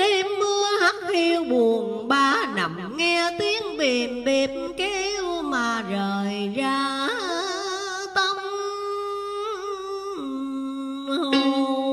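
A voice singing a slow, drawn-out Vietnamese vọng cổ line with heavy vibrato and long held notes, over music.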